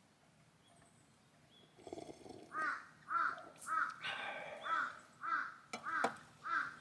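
Crow cawing, a run of about seven harsh caws at roughly two a second, starting about two and a half seconds in.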